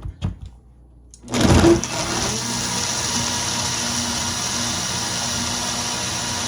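A few light clicks, then about a second in a Vitamix blender's motor starts with a brief surge and runs at a steady high speed, blending a thick, icy orange-and-milk drink.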